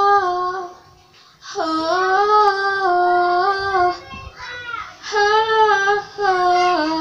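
A woman singing solo, holding long drawn-out notes on open vowels, in several phrases broken by short breaths.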